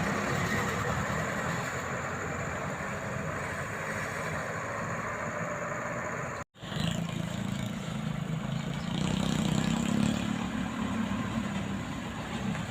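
A vehicle engine running steadily, with an abrupt silent gap about halfway through where the recording cuts.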